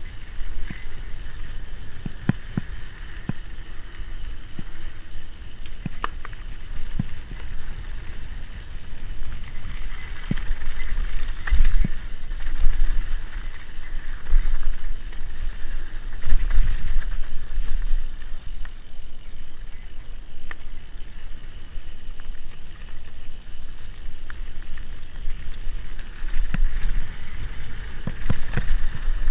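Mountain bike riding fast down a dirt forest singletrack: a steady rolling rumble of tyres on the dirt, with frequent sharp knocks and rattles from the bike over bumps, loudest in the middle stretch.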